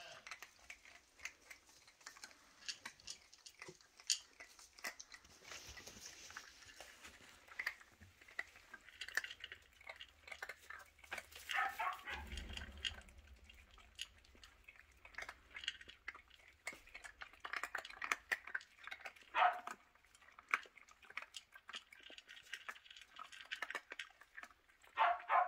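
A litter of Shetland sheepdog puppies crunching dry puppy kibble: a fast, irregular patter of small crisp crunches. A few brief puppy whimpers come through, one near the end.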